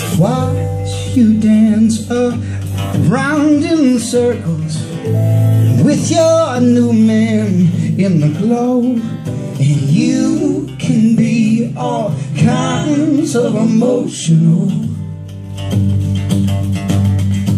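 Live band playing a country-folk song: acoustic guitar, electric guitar and mandolin, with singing.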